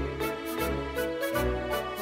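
Background music: a light instrumental track with a steady beat.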